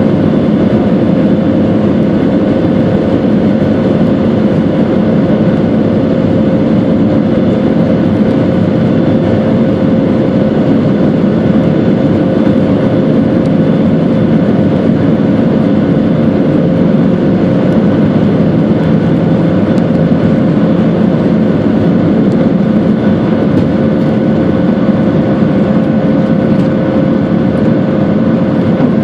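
Boeing 737-700's CFM56-7B turbofan engines at takeoff thrust during the takeoff roll and lift-off, heard inside the cabin over the wing: a loud, steady noise with a steady whine running through it.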